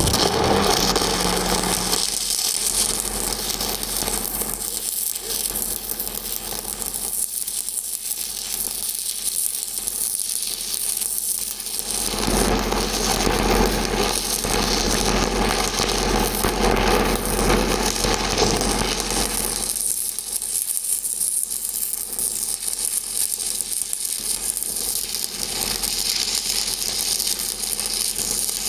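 Stick (shielded metal arc) welding arc crackling steadily as a downhill fill pass is run on a pipe joint.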